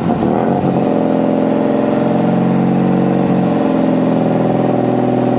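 Mk2 Ford Fiesta engine running just after a cold start from a six-month lay-up; its revs ease down over the first second, then it runs steadily.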